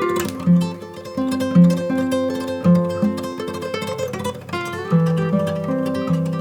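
Background music: acoustic guitar plucking a melody over a steady bass line.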